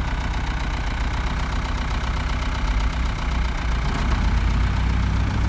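Vehicle engine running steadily under load while pulling a vehicle stuck in mud free. A deeper engine note comes in and the sound gets a little louder about four seconds in.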